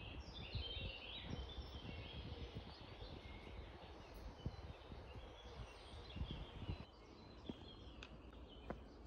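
Faint woodland ambience: small songbirds chirping and singing in short phrases, mostly in the first few seconds, over a low rumble.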